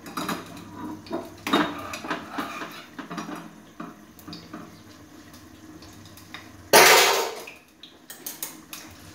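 Metal clinks and clatter from an aluminium plate lid on a pot of simmering mutton curry, scattered through the first few seconds and again near the end. A short, loud burst of noise comes about seven seconds in.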